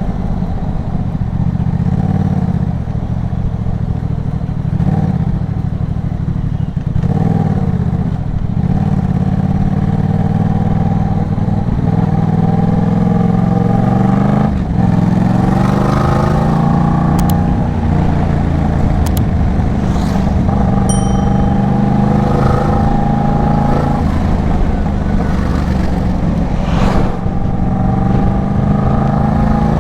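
Yamaha MT-07's parallel-twin engine through an Arashi aftermarket exhaust under hard riding. The engine pitch climbs and drops again and again as it revs through the gears, with a long climb that breaks off sharply about halfway through.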